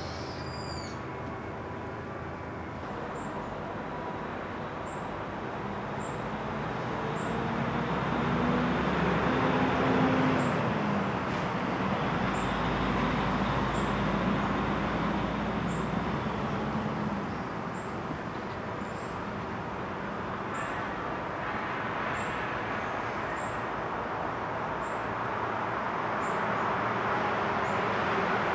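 Road traffic passing: a vehicle's engine and tyre noise swells, its tone dropping in pitch as it goes by, then fades, and another approaches near the end. A short, high chirp repeats about once a second over it.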